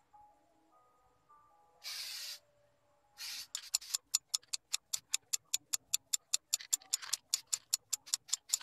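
Aerosol clear-coat spray can hissing in two short bursts as it is sprayed, then shaken hard, its mixing ball rattling about six times a second.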